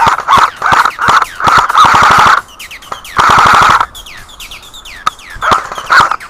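Airsoft guns firing on full auto in a string of short rapid bursts, with two longer bursts of under a second about one and a half and three seconds in, then a short lull before more short bursts near the end.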